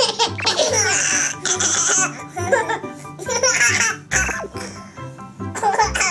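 Eleven-month-old babies laughing with belly laughs in repeated bursts, a long one at first and shorter ones after, over background music.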